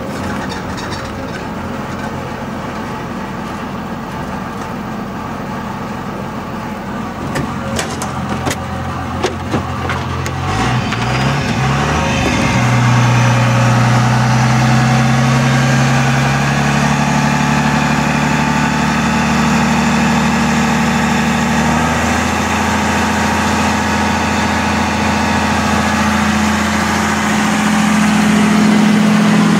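Stock 24-valve Cummins 5.9-litre turbo-diesel straight-six in a 2002 Dodge Ram idling steadily. It is heard close to the exhaust tip and grows louder about twelve seconds in, with a few short knocks shortly before.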